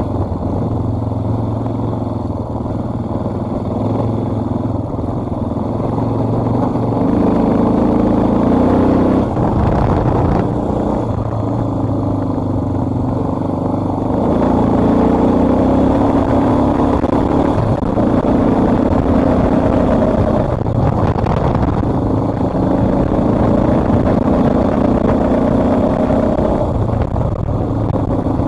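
Dual-sport motorcycle engine running under way, its pitch rising and falling several times as the throttle is opened and rolled off.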